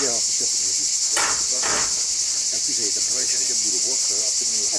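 A steady, high-pitched chorus of summer insects, with faint voices underneath and a couple of light knocks about a second in.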